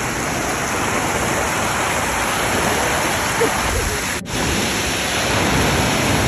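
Amicalola Falls' cascading water rushing steadily, with a brief dip a little past halfway.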